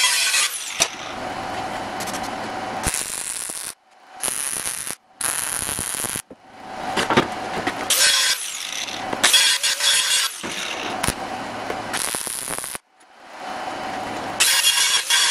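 Angle grinder grinding along the joints of a steel box, with a high whine over a rough grinding noise. It comes in several stretches that cut off suddenly and start again.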